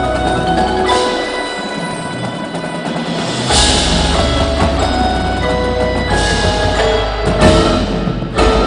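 High-school indoor drumline playing, led by the front ensemble's mallet keyboards (marimbas and vibraphones) with ringing, bell-like notes and a few sharp loud hits. A low sustained bass comes back in about three and a half seconds in.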